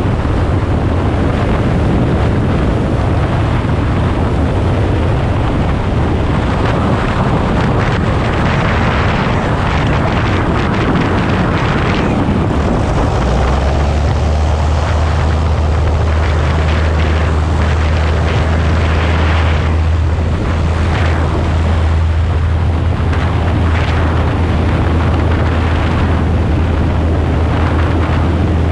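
Wind rushing over an outside-mounted camera microphone on a light airplane, with the piston engine and propeller droning underneath. About halfway through, as the airplane rolls out on the runway, the wind rush thins and a steady low engine hum comes through.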